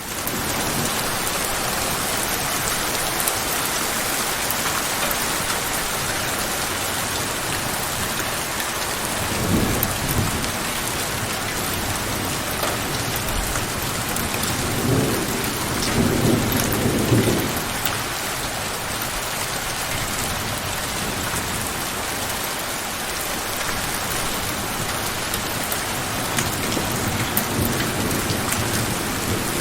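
Steady, heavy rain falling, with low rumbles of thunder about ten seconds in and again, longer, around fifteen to seventeen seconds in.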